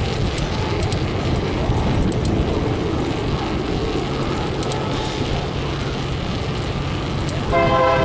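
Steady wind and movement noise rumbles as the camera travels along the road. Near the end, a freight locomotive's air horn starts blowing, louder than the rumble.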